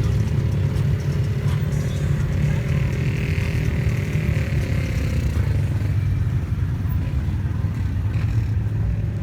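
Motor vehicle engine running steadily with a low drone, a higher whine coming in for a few seconds around the middle.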